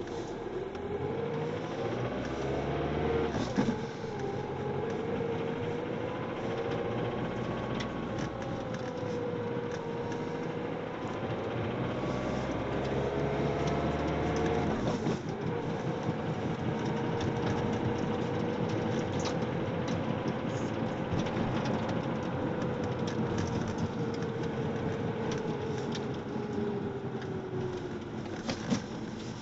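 Ford Mondeo TDCi common-rail diesel engine running with a rattle, its pitch rising near the start and shifting again about halfway through, with a couple of sharp clicks.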